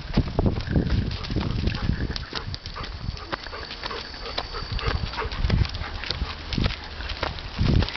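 Dogs moving about on a dog run: irregular low thumps and rumbling, with scattered sharp clicks.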